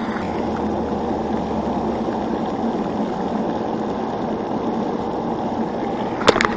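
Steady rush of splashing water, with a few sharp clicks near the end.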